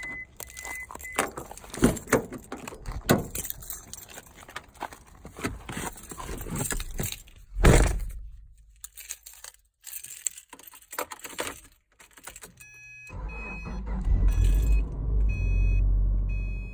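Keys jangling and clattering, with a heavy knock about eight seconds in. About thirteen seconds in, a car engine starts and keeps running, with short beeps repeating over it.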